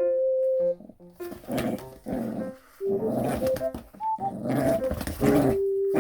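Small Maltipoo dog growling in a series of short, rough bursts, over background music.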